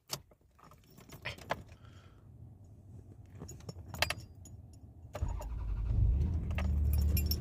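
Keys jingling with scattered clicks, then about five seconds in a car engine starts and settles into a steady idle.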